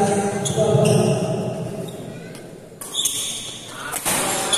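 Spectators' voices echoing in a sports hall, then a badminton rally begins: sharp racket strikes on the shuttlecock about three seconds in and again about a second later, with shoe squeaks on the court floor.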